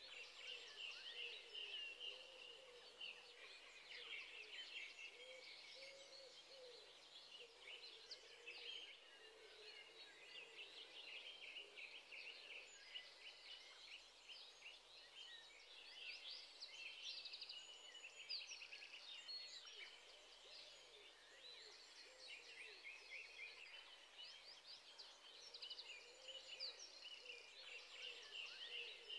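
Faint chorus of birds, many short chirps and trills overlapping throughout.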